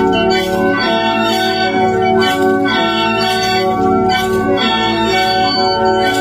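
Bamboo mouth organs (Mro plung) playing sustained reedy chords, many held notes at once, with a regular accent about once a second.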